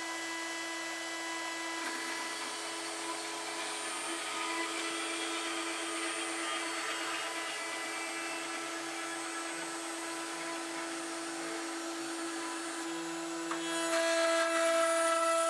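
Small CNC engraver's spindle running steadily with a 2-flute 1/8" bit, milling the final clean-out pass in a wooden sign with a thin high whine. Near the end a second, louder motor joins for about two seconds.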